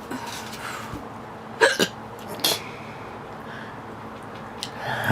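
A woman hiccuping: a few short, sharp hiccups with quiet room tone between them, two close together about a second and a half in, one more soon after, and another at the very end.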